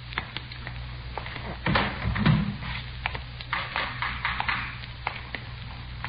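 Radio-drama sound effects: a run of irregular taps and knocks, with a heavier thump about two seconds in, over the steady low hum of an old transcription recording.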